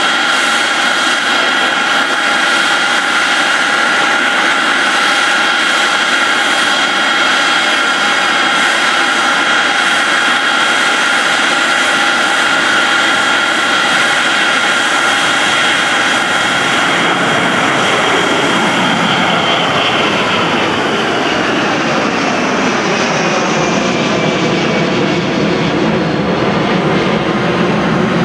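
Twin turbofan engines of a Boeing 757-200 at takeoff thrust: loud, steady jet noise with high whining tones through the takeoff roll and lift-off. About two-thirds of the way in, the whine glides down in pitch and the noise takes on a shifting, phasing rumble as the jet climbs away.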